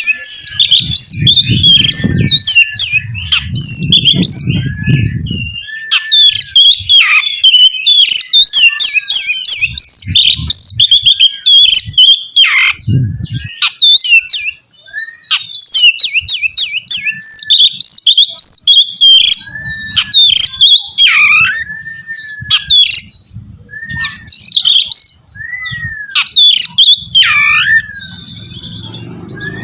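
Oriental magpie-robin (kacer) singing in full, a fast, varied song of chattering notes broken by clear whistles that curve down in pitch. A low rumble sits under the first few seconds.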